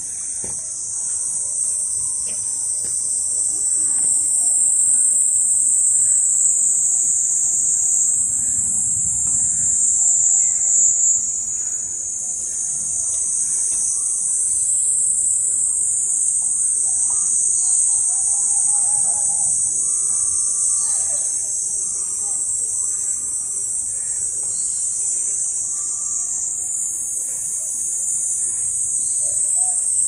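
A steady, shrill chorus of insects, high-pitched and unbroken throughout.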